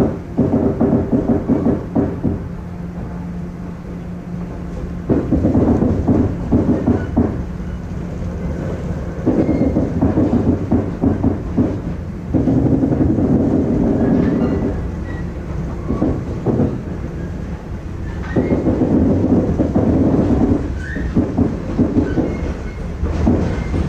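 Passenger coach wheels clattering over rail joints and yard points, heard from inside the KiSaHa 34 trailer coach. Loud stretches of rapid clatter come and go every few seconds over a steady low rumble of the moving train.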